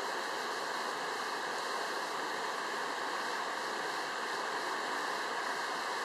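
Small mountain stream babbling over rocks, a steady, even rush of running water.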